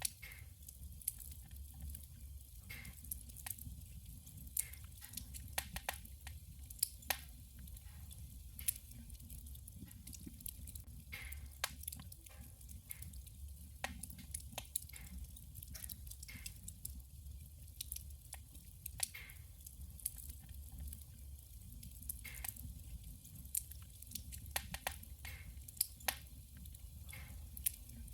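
Firewood burning in a wood stove, crackling and popping in many irregular sharp snaps over a low steady rumble of the fire.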